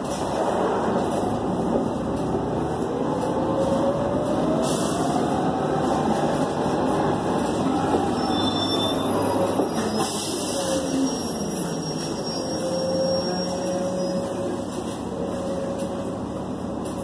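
Inside an articulated city bus under way: steady engine and road noise, with a drivetrain whine that rises in pitch for several seconds as the bus speeds up. About ten seconds in the whine falls away as the bus slows, then it holds at a lower steady pitch.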